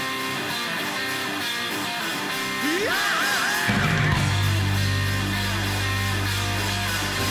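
Hard rock band playing live: electric guitar over sustained chords, with a rising, wavering note near the middle. About halfway through a deep low note comes in and holds.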